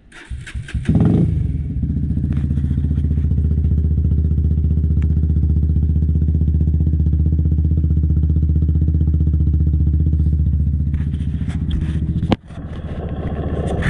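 Sinnis Hoodlum motorcycle started on the electric starter: a brief crank, the engine catches about a second in and settles into a steady idle through its exhaust. Near the end there is a sharp click, the sound drops out for an instant, then comes back louder.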